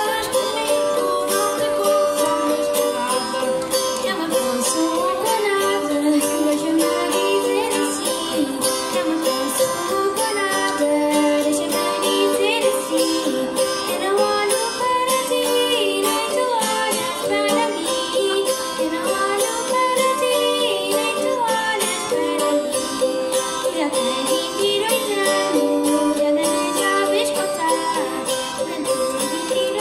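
Traditional Madeiran folk music played live: small plucked string instruments strumming with voices singing over them.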